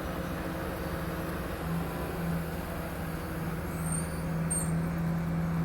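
A large mobile crane's engine running steadily under load, a constant low hum, with a couple of faint high squeaks about four seconds in.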